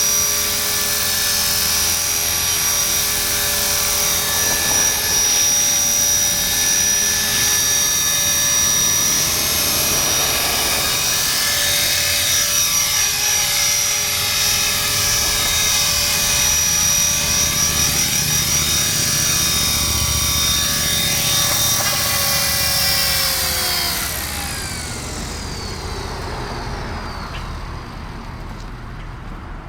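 Blade 400 electric RC helicopter hovering: a steady high whine from its motor and gears over the rotor noise. Near the end the whine falls in pitch and the sound drops away as the rotor spools down.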